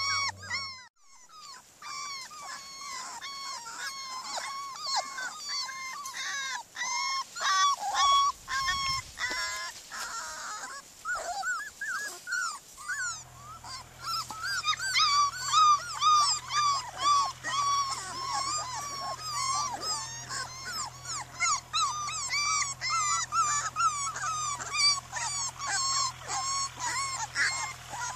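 A litter of border collie puppies whining and yipping almost without pause: many short, high cries that rise and fall, several pups overlapping. A low steady hum joins in about halfway through.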